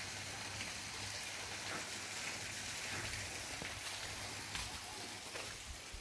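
Steady outdoor background hiss with a faint, uneven low rumble and a few faint ticks.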